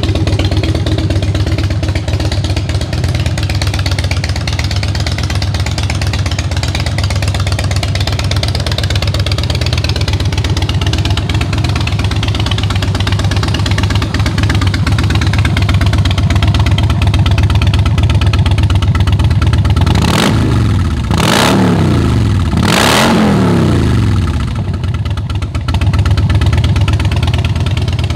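2008 Harley-Davidson Softail Rocker C's Twin Cam 96 V-twin idling steadily, then revved three times in quick succession about two-thirds of the way through before dropping back to idle. It is a running test of the engine, which the seller says runs fine.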